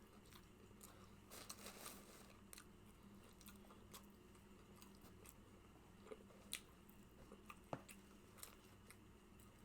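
A person quietly chewing food, with faint, short mouth clicks scattered every second or so.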